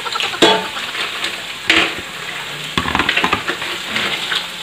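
Ground pork frying with minced garlic in oil in a metal wok, sizzling as it is stirred with a metal spoon that knocks and scrapes against the pan a few times.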